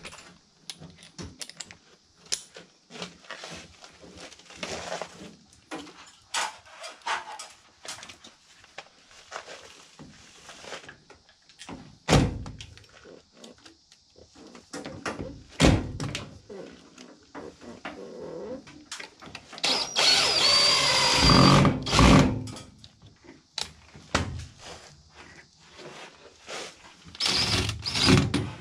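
DeWalt cordless drill running in two bursts, one of about two seconds with a steady high whine about 20 seconds in and a shorter one near the end, with its bit against sheet metal. Before that come tool-handling clicks and two loud knocks.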